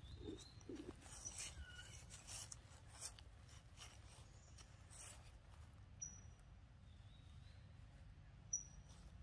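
Faint rustling and crinkling of dry leaves and scratchy handling as a monkey picks at and eats pieces of papaya, mostly in the first half. A few short high chirps come later.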